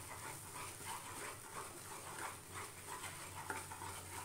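Wooden spatula stirring thick, sticky banana paste round a non-stick kadhai: faint, soft swishing strokes, about three a second.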